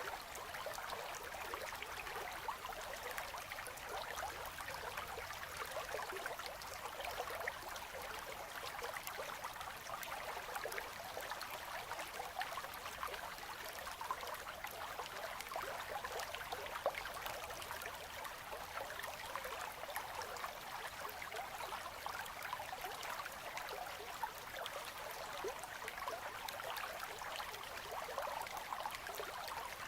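Winter river's current flowing over ice edges: a steady, gentle trickling and gurgling, with many small drips and splashes throughout.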